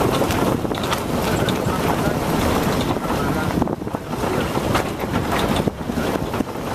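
Wind buffeting the microphone over the low rumble and scattered rattles of a vehicle travelling a rough dirt road.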